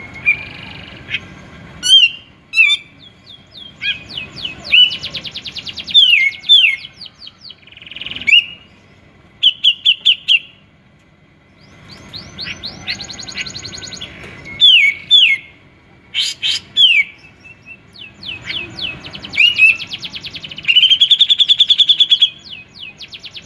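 Grey-cheeked bulbul (cucak jenggot) singing loudly and almost without pause. It strings together chirps, sharp downward-sweeping notes, rapid clicks and fast trills. There is a short quiet gap a little before the middle, and the song ends in a long, even trill near the end.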